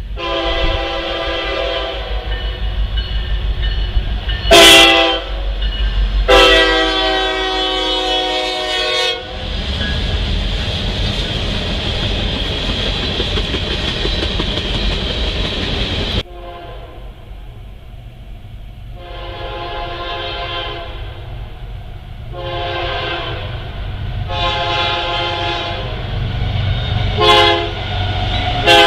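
Diesel freight locomotive horns sounding the grade-crossing signal in long and short blasts, then the freight cars rolling past with wheels clicking over the rail joints. After an abrupt cut about 16 seconds in, a Canadian Pacific locomotive's horn sounds another crossing sequence of long blasts, one short blast and a long one as it approaches.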